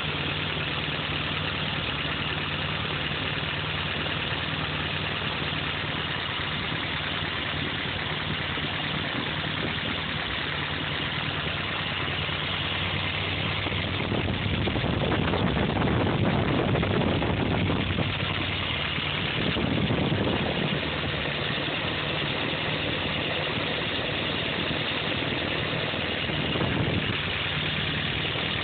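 Four-cylinder engine with a freshly rebuilt Carter carburetor idling steadily on a warm restart. It revs up for a few seconds about halfway through, then briefly twice more before settling back to idle.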